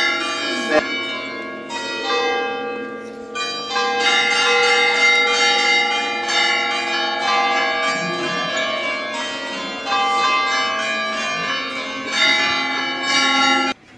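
Church bells pealing, many overlapping ringing tones struck again every few seconds, cutting off suddenly near the end.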